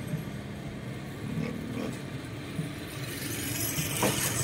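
Low, steady rumble of a motor vehicle's engine, with a short knock near the end.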